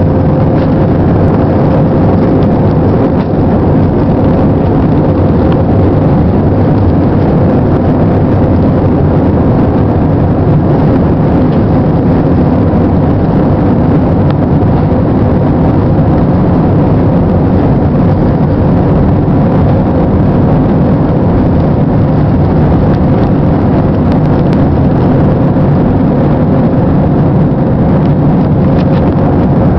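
Jet airliner engines running at takeoff power: a loud, steady roar with a steady engine whine on top.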